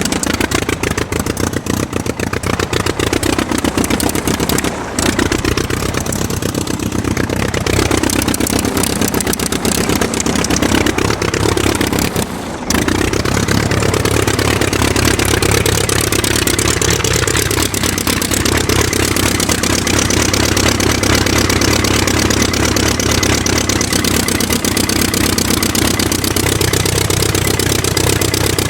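Aircraft engine running steadily with a fast, even pulsing rattle and a pitch that wavers slightly. The sound drops briefly about five seconds in and again about twelve seconds in.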